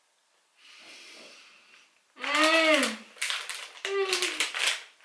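A woman's wordless sounds of delight while eating a cookie: a long, loud "mmm"-like moan that rises and falls in pitch about two seconds in, then a second, shorter one, mixed with the crinkle of a plastic cookie wrapper.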